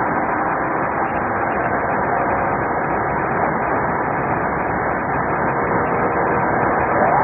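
Steady road and engine noise inside a patrol car driving at highway speed. Right at the end a siren starts up, rising in pitch.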